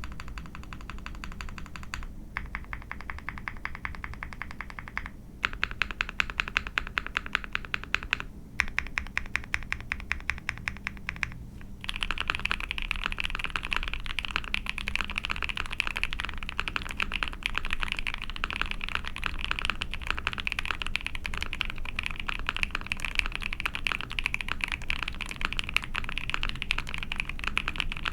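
Typing on an Ai03 Vega mechanical keyboard with a POM plate, GMK keycaps and lubed Milkis Frankenswitch linear switches (Tecsee diamond top, UHMWPE cow stem): dense key strokes in runs broken by short pauses for the first twelve seconds or so, then steady, faster continuous typing. The switches have a low, deep sound that their builder calls thocky.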